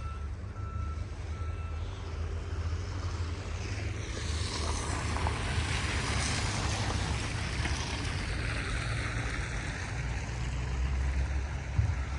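Wind rumbling on the microphone, with a vehicle's reversing beeps that stop about a second in. Then a vehicle passes on the snowy street, a rushing hiss that swells and fades over several seconds.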